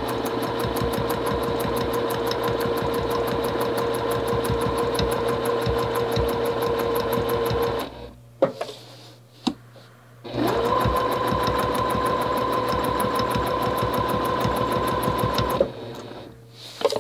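Juki TL-2010Q straight-stitch sewing machine stitching at a steady speed through the quilt layers, its needle running in a rapid even rhythm, as a straight line is sewn along a quilting ruler held against the ruler foot. It stops about eight seconds in, a few light knocks follow, and it runs again for about five seconds before stopping.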